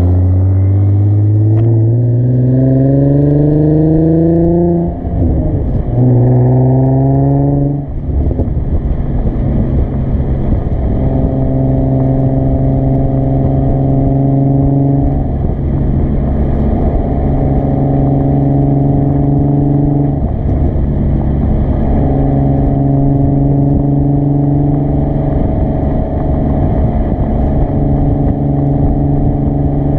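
2013 Nissan 370Z's 3.7-litre V6 heard at the tailpipe through a Motordyne cat-back exhaust under way. The note climbs under acceleration, drops about five seconds in with an upshift and climbs again, then about eight seconds in settles into a steady cruising drone.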